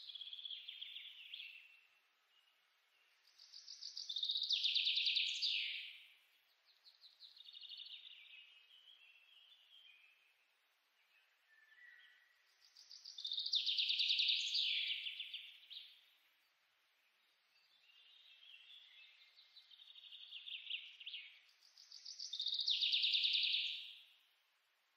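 A songbird singing: trilled phrases two to three seconds long, repeated every few seconds, louder phrases alternating with softer ones.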